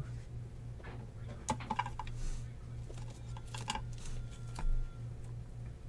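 Trading card being handled and slid into a clear plastic sleeve and rigid top loader: scattered light plastic clicks, taps and rustles, a little louder in the middle and near the end.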